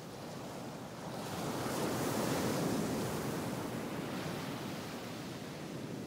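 A rushing noise, like surf or wind, that swells about a second in and then slowly eases off.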